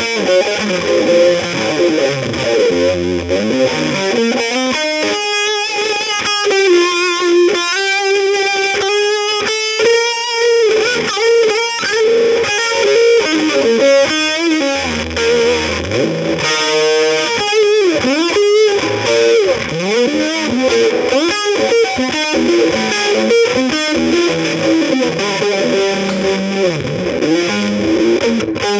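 Background music: an electric guitar played through distortion and effects, with held notes that bend and slide in pitch.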